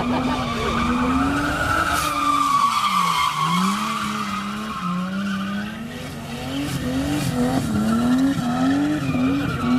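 Car engine revving high while the car drifts in circles, its rear tyres squealing steadily on the asphalt. The revs sag and pick up again about three seconds in, then rise and fall about twice a second near the end.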